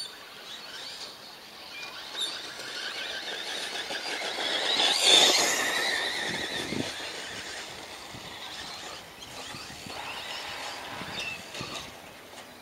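Remote-control car driving close by, its motor and tyres making a high squealing whine that builds to a peak about five seconds in, then fades away.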